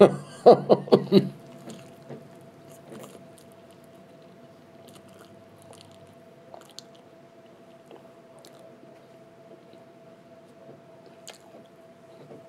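A man biting into and chewing a soft flatbread gyro sandwich close to the microphone: a few loud mouth noises in the first second, then quiet chewing with small irregular clicks.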